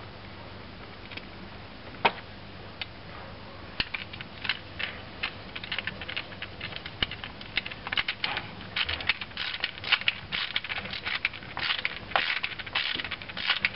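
Screwdriver turning the cover screws down into a Citroën Dyane's mechanical fuel pump, metal on metal. A few separate clicks come first, then from about four seconds in a fast run of short clicks and scrapes as the screws are tightened.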